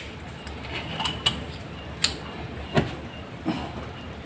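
Glass bottles being handled on a tabletop: a handful of light clicks and taps, spaced out, over a low background hiss.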